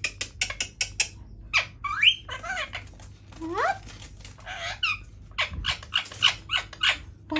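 Indian ringneck parakeet chattering as it tries to talk: quick runs of sharp clicks and short chirps, broken by a few rising whistled glides.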